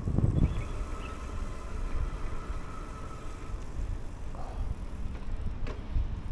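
Mokwheel Granite electric trike being ridden: wind buffeting the microphone and a steady low rumble of riding noise, with a faint steady whine for a few seconds near the start.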